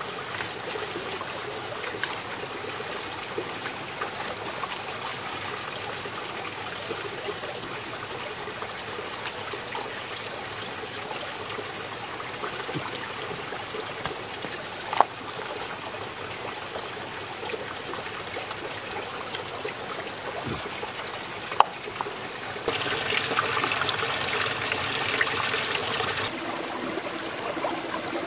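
Water trickling and running steadily, with two sharp knocks midway. It turns into a louder, splashier rush of water for about four seconds near the end.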